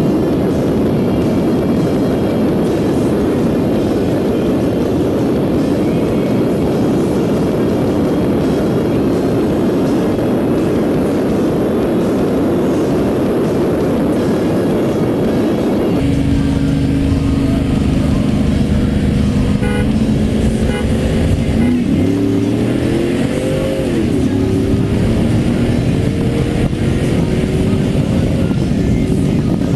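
Pickup V8 with open exhaust running at road speed, a steady roar mixed with wind rush. After a cut about halfway through, the truck idles with a steady low rumble and is revved once, the pitch sweeping up and dropping back, before a run.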